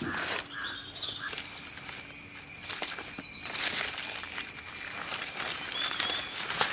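Dry palm leaves rustling and crackling as hands fold them around a bundle and tie it, over forest ambience with a steady high insect buzz starting about a second in and a couple of short bird chirps.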